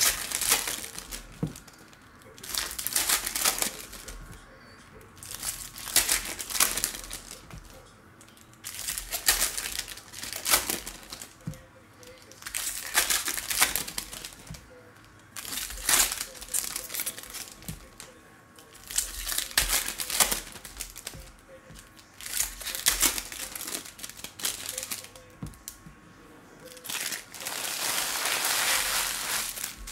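Foil baseball-card pack wrappers crinkling and tearing as packs are opened, in repeated bursts every second or two, with a longer stretch of crinkling near the end.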